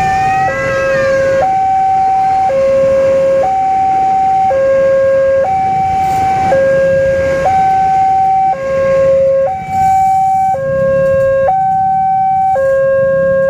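Railway level-crossing warning alarm sounding a steady electronic two-tone signal. A higher and a lower tone alternate, each held about a second and repeating evenly, warning that a train is approaching and the barrier is down.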